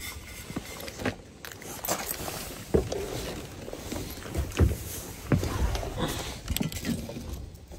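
Irregular knocks, thumps and rustling of gear being handled and moved around in the back of a truck under the camper shell.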